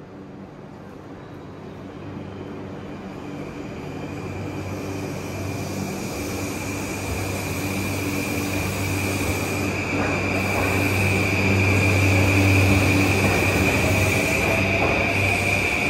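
JR East E235 series 1000 electric multiple unit pulling away from the platform. The running noise grows steadily louder as it gathers speed, with a steady high whine and a low hum from its traction motors and inverter, and a tone rising in pitch near the end.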